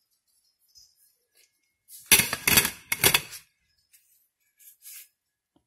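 Ice cubes clinking and shifting against a plastic brining bag in a stainless steel pot as it is handled: a clattering burst lasting about a second and a half, starting about two seconds in, with a few fainter clinks near the end.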